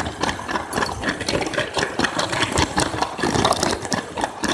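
Small electric motor of a Lego toy train running, with rapid, dense clicking and rattling of plastic parts.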